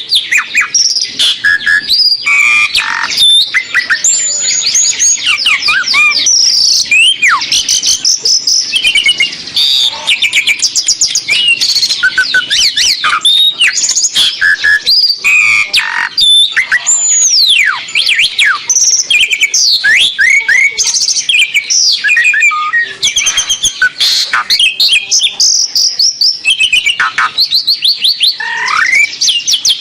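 Asian pied starling (jalak suren) singing non-stop: a fast, varied stream of loud whistles, clicks and chatter, with sliding notes that rise and fall like a siren.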